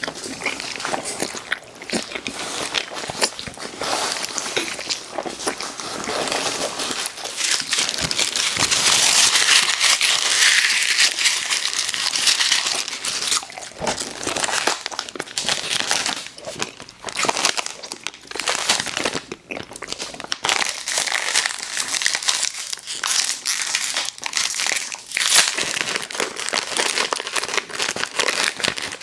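Plastic candy wrapper crinkling and crumpling close to the microphone, a dense crackle that grows loudest partway through.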